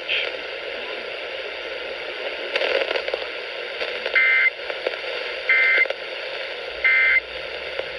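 Emergency Alert System end-of-message data bursts: three short, loud two-tone digital squawks, about a second apart, heard over radio hiss and crackle.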